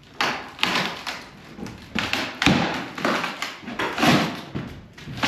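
Irregular knocks and bangs of old wooden stair framing being struck and broken apart during demolition, about one every half second to a second.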